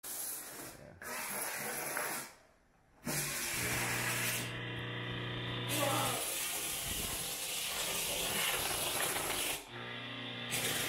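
Handheld steam cleaner jetting steam in a strong, steady hiss, broken off briefly twice. A steady low hum joins it for a few seconds in the middle and again near the end.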